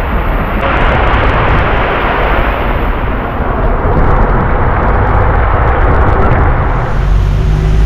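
Wind and rain rushing over the microphone at the front of a moving double-decker sightseeing bus's upper deck, a dense, loud buffeting, with a deeper rumble of the bus coming in near the end.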